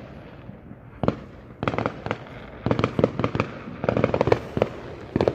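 Fireworks going off: clusters of rapid sharp cracks and pops, starting about a second in and coming in bunches.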